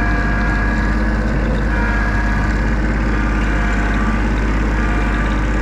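New Holland riding tractor's engine running steadily as the tractor drives through mud on turf tires, a constant engine hum with a strong low rumble.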